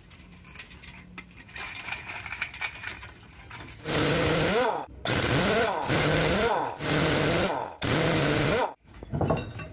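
Electric impact wrench running on a truck's wheel nuts: four loud bursts of about a second each in the second half, the motor's pitch rising and falling within each burst. Softer clinking and rattling comes before them.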